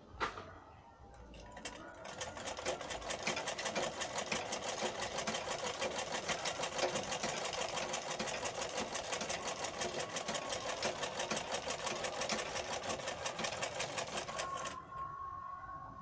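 Sewing machine stitching a long straight seam in cotton cloth: a rapid, even run of stitches that starts about two seconds in and stops shortly before the end, after a single click near the start.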